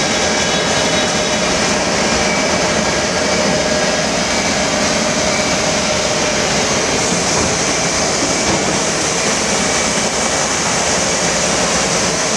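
Steady machine-shop noise: running machinery with a few faint high steady whines over an even rush.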